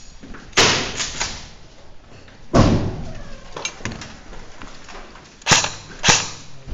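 Four sharp bangs echoing down a building corridor, the last two close together near the end, each with a short ringing tail.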